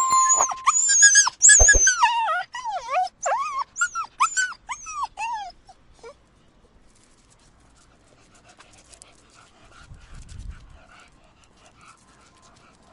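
A dog yelping: a rapid run of about a dozen short, high-pitched yelps with bending pitch, fading out about six seconds in, followed by faint quiet sounds.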